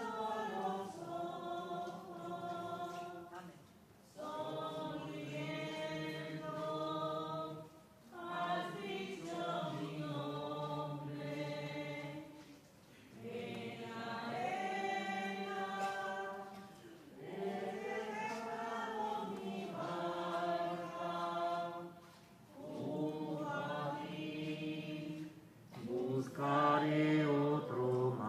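Voices singing a slow liturgical hymn in phrases of about three to four seconds, with short breaks between them.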